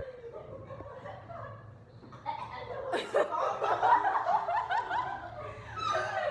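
Laughter: a run of quick, repeated laughs starts about three seconds in and lasts a couple of seconds, after quieter voice sounds.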